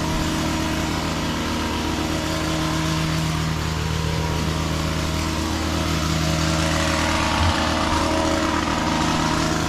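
A small gas engine running steadily at a constant high speed, with no changes in pitch.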